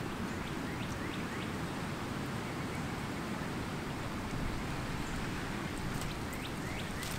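Outdoor ambience: steady wind noise, with a few short, faint bird chirps about a second in and again near the end.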